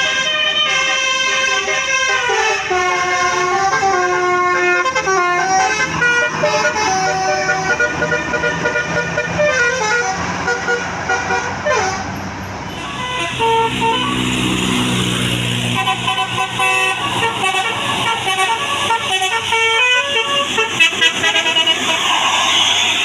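A 12-note 'telolet basuri' melodic horn on an Indonesian tour bus playing a tune, its notes stepping quickly up and down. About halfway through the sound changes abruptly to another horn tune, now with a steady hiss behind it.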